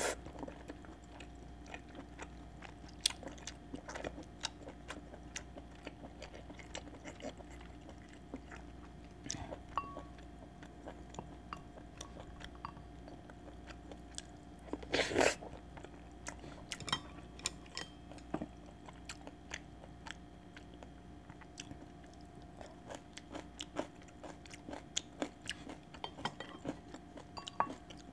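Close-miked eating of chicken rice porridge: soft chewing and wet mouth sounds with many small scattered clicks, and one louder, longer burst about halfway through.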